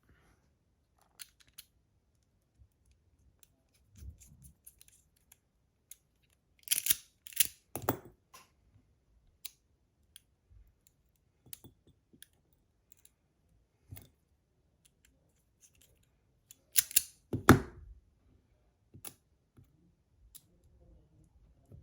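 Magnetic fidget slider being slid and snapped between positions: scattered light clicks, with louder clusters of clacks about seven seconds in and again about seventeen seconds in.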